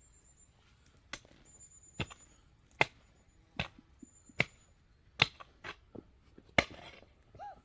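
Repeated sharp blows of a hand tool striking hard material, one about every 0.8 seconds, with a slightly longer gap before the last one.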